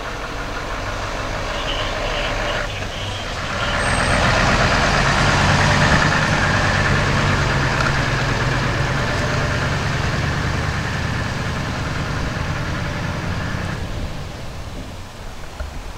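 Heavy three-axle fire engine (a large tank tender) driving past slowly on a dirt forest track, its diesel engine running steadily. It grows loud a few seconds in and fades as the truck pulls away near the end.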